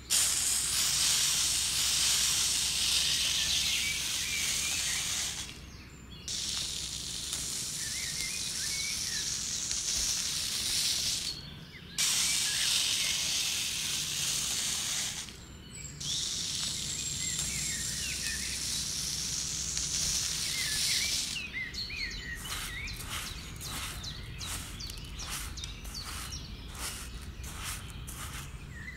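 Fine white sand poured from a small plastic cup into a plastic tray: a steady hiss in four pours with short breaks between them. Over the last several seconds a small metal tool scrapes through the sand in short strokes, about two a second.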